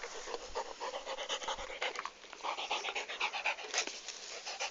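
A dog panting rapidly, several quick breaths a second, close to the microphone.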